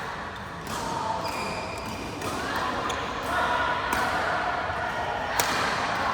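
Badminton rackets striking a shuttlecock in a rally: several sharp hits, the loudest about five seconds in, over background chatter.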